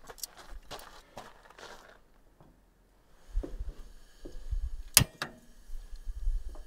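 Camp stove and cookware being handled and lit: scattered clicks and knocks, one sharp loud click about five seconds in, and a faint steady hiss of the burner.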